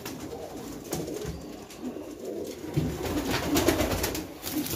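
Uzbek double-crested pigeons cooing in a cage: a low, continuous warbling coo from several birds, strongest about three to four seconds in, with a few light clicks.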